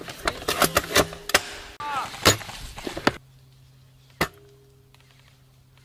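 Airsoft guns firing, a rapid irregular run of sharp cracks and pops for about three seconds. It then drops to a low steady hum broken by one sharp shot from the scope-mounted airsoft sniper rifle about four seconds in.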